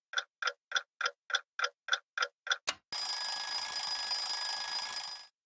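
A clock ticking about three times a second, then an alarm clock ringing loudly for about two and a half seconds before it cuts off suddenly.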